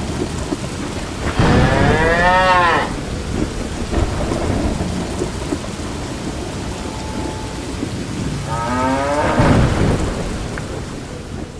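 Rain falling steadily with a low rumble, as a cow moos twice: a long arching moo about a second and a half in, and another about eight and a half seconds in.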